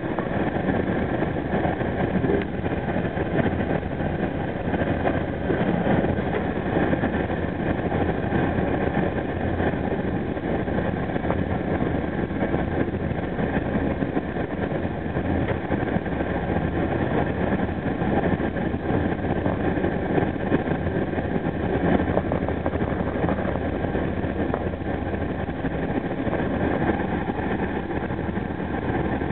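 Caltrain commuter train running at speed, heard on board: a steady rumble of wheels on rail with a low engine drone.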